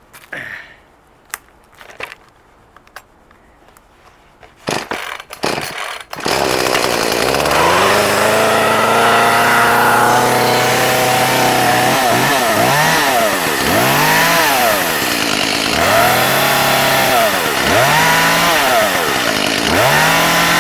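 Echo CS-310 chainsaw's two-stroke engine: a few clicks and knocks, then it starts about six seconds in and runs, its pitch climbing for a few seconds. It is then revved up and down over and over, roughly once every second or two.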